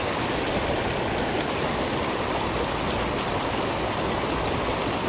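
River water rushing steadily over a low spillway and shallow rocks.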